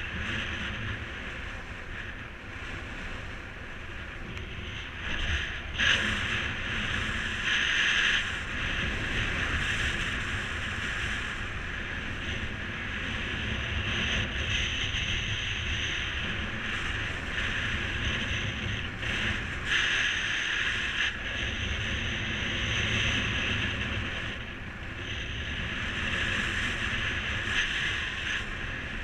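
Strong wind rushing over the microphone in flight under a paraglider, a steady rush with a low rumble that swells and eases every few seconds.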